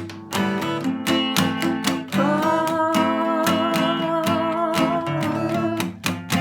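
Music: an acoustic guitar strummed in a steady rhythm, with a long held note with vibrato ringing over the chords from about two seconds in until near the end.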